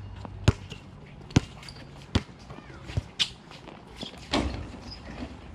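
Basketball bouncing on an outdoor hard court, a sharp bounce about every second, then a louder, longer hit about four and a half seconds in as a shot reaches the hoop.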